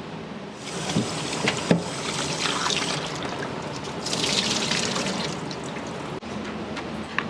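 Water running from a kitchen tap into a sink, heaviest midway, with a few sharp clinks of utensils or dishes early in.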